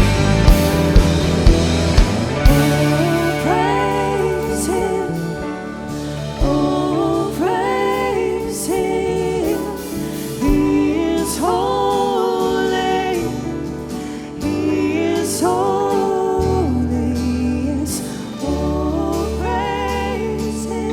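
Worship band music: a melody line, sung or played, over bass and drums, with sharp drum beats about two a second in the first two and a half seconds.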